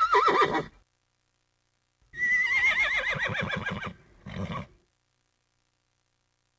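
Horse whinnying twice: a short whinny that quavers and falls at the start, then from about two seconds in a longer whinny that begins high, wavers and slides down in pitch. A short lower burst follows it.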